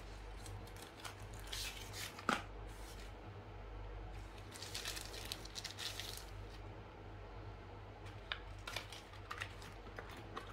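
Paper and plastic phone-box packaging rustling and crinkling in irregular bursts as it is handled, with one sharp tap a little over two seconds in. A steady low hum runs underneath.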